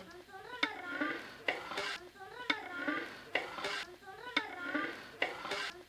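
Metal ladle stirring chicken pieces through thick tomato masala in a large metal pot, about once a second: each stroke a sharp knock of the ladle against the pot followed by a wet squelch of the gravy. The chicken is being sautéed in the masala so the spices and salt soak in.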